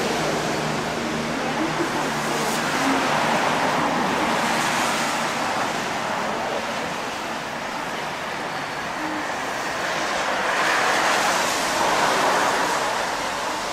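Road traffic on a rain-wet city street: a steady hiss of tyres on wet asphalt mixed with rain, swelling louder as vehicles pass, most strongly about ten to thirteen seconds in.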